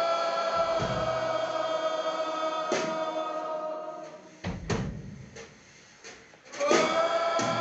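Audience and band singing along together in a long held note, with a few drum hits. The singing breaks off about four seconds in and, after a short quieter gap, comes back in near the end.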